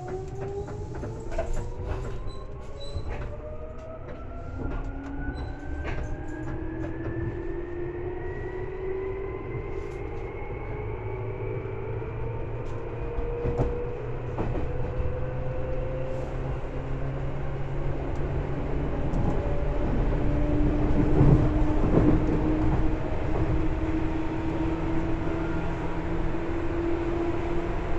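Onboard running sound of a Seibu 2000 series electric train pulling away, with the whine of its field-chopper-controlled DC traction motors and gears rising steadily in pitch. The whine flattens into a steadier tone in the second half, over the low rumble of wheels on rail that grows louder as the train gathers speed.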